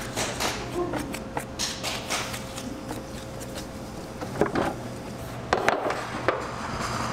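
Kitchen handling noise: scattered light clicks and knocks, with a few louder knocks about four and a half and nearly six seconds in, over a steady low hum.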